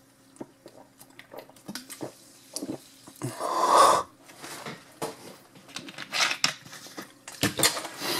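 Close-up mouth and throat sounds of a man drinking and chewing after nearly choking on fried onions, with small clicks throughout and a loud rasping noise about three and a half seconds in. Near the end a fork clinks against the plate.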